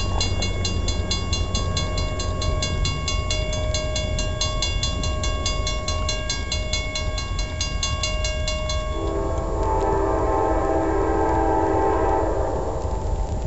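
A railroad crossing bell rings about three strikes a second while the crossing gate comes down. It stops about nine seconds in, and an approaching Amtrak passenger locomotive sounds one long, several-note horn blast that lasts about four seconds.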